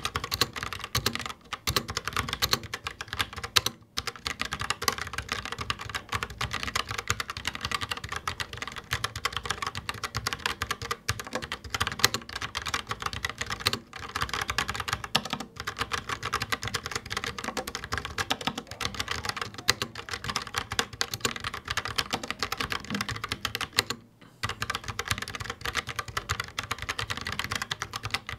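Fast, continuous typing on a Logitech POP Keys mechanical keyboard with TTC Brown tactile switches and round keycaps, a dense run of key clicks that stops briefly a couple of times.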